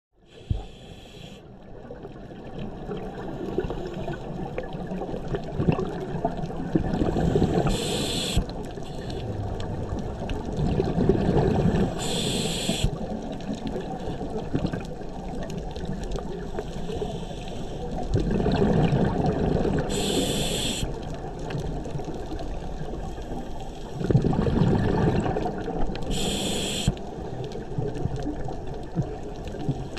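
Scuba diver breathing through a regulator underwater: bursts of exhaled bubbles, each followed by a short hiss of inhalation through the regulator, four breaths in all, over a steady low underwater rumble.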